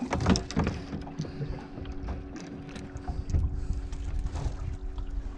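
Wind buffeting the microphone and water lapping against a small fishing boat's hull, over a steady low hum. There is a sharp knock just after the start.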